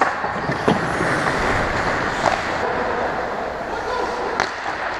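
Ice hockey game from behind the goal: a steady wash of skate blades on ice and rink noise, with players' voices and a few sharp knocks about a second in, about two seconds in and near the end.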